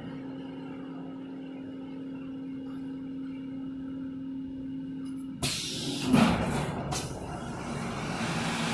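Small CNC milling machine humming steadily, then about five seconds in a sudden loud hiss of compressed air with a couple of sharp clunks as the automatic tool changer releases and swaps the tool in the spindle.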